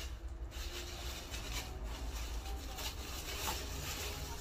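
Plastic bag rustling and crinkling in irregular bursts as it is handled by hand to unwrap an item, over a steady low hum.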